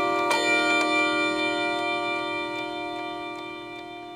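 A Hermle German-made 8-day key-wound clock movement strikes the hour count on its chime rods. A single hammer blow lands about a third of a second in, and the rods ring on and slowly fade. The movement ticks faintly underneath.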